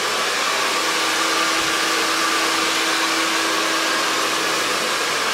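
Hand-held hair dryer blowing hot air steadily over an afro, drying a coat of hair lacquer so the hair sets firm.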